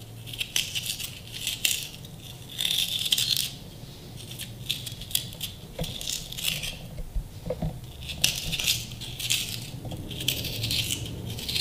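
Knife tip scraping out the inside of a small raw red potato to hollow it: repeated short, scratchy scraping strokes in irregular runs.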